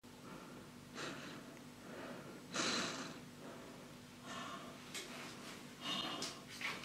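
Breathing in and out through a snorkel tube: a few short, noisy huffs, the loudest about two and a half seconds in.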